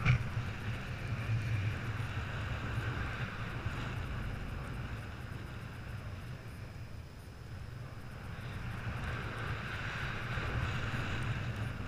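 Wind rushing over a GoPro camera's microphone in paraglider flight: a steady low rumble with a hiss that swells and eases, growing louder near the end. A short knock comes right at the start.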